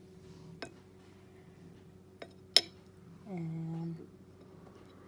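Cutlery clinking against a ceramic plate and bowl in a few light taps, with one sharp clink about two and a half seconds in. A short hummed voice follows just after, over a faint steady hum.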